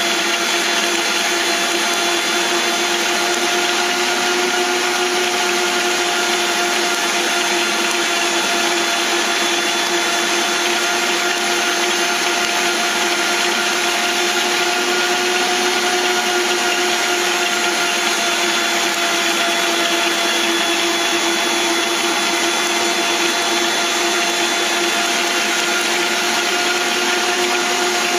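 Stand mixer running at top speed, kneading a very wet, 100%-hydration pizza dough in a stainless steel bowl: a steady motor whine that holds the same pitch and level throughout.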